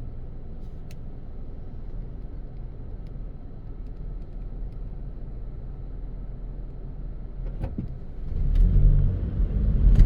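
Car driving: steady low road rumble that gets much louder about eight seconds in, with a few light clicks.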